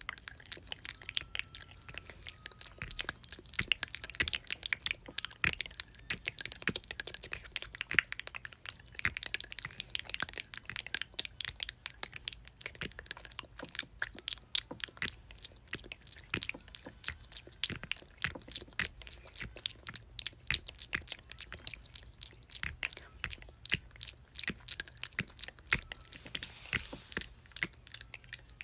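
Close-miked mouth sounds: a steady stream of rapid, irregular wet clicks and smacks from the lips and tongue.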